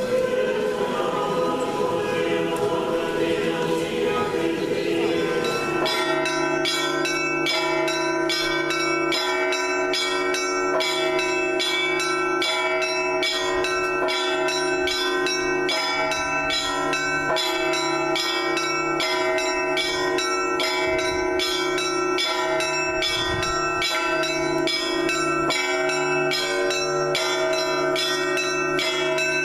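Singing voices in a large church, cut off about six seconds in by Orthodox church bells pealing: a rapid, steady run of bell strikes, about two to three a second, over several ringing tones.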